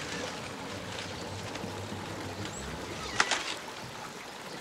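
1/10-scale Traxxas TRX-4 RC crawler driving over rough ground, with a steady rustle of tyres and drivetrain and a single sharp knock about three seconds in.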